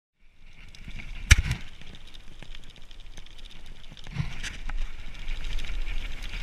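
A chest-mounted action camera's own audio on a mountain bike: a steady rush of wind and rolling noise as the bike moves over a gravel track, with several knocks and thuds from the camera mount and bike, the loudest a sharp one about a second in.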